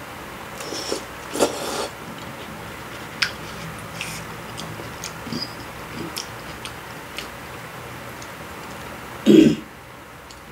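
Hot kimchi noodles being slurped and chewed, with a few light clicks of chopsticks against the bowl, and a short, loud clearing of the throat about nine seconds in.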